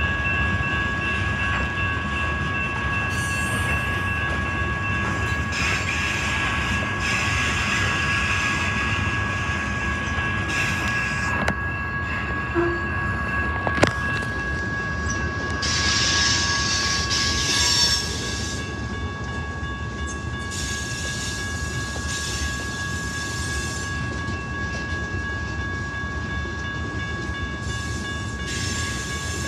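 Freight cars of a passing train, tank cars, centerbeam lumber flatcars and covered hoppers, rolling steadily along the rails, with a steady high-pitched tone running under the noise throughout. A single sharp knock comes about 14 seconds in.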